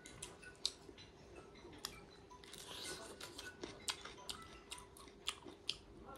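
Close-up mukbang eating sounds: chewing and wet mouth smacks from people eating chicken and rice by hand. Scattered sharp clicks come throughout, with a longer soft rustle of handling about two and a half seconds in.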